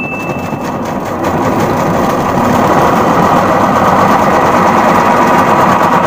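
Sharp top-load automatic washing machine's motor and belt drive spinning the tub, with the spin brake held open by hand and the drain motor bypassed. It grows louder over the first two seconds, then runs steadily with a dense mechanical whir and rattle.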